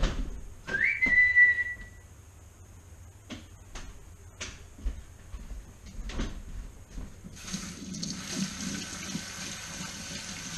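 A single short human whistle about a second in: the note rises, then holds for about a second, as if calling a dog. A few light knocks follow. From about seven seconds in, a kitchen tap runs into a stainless steel sink.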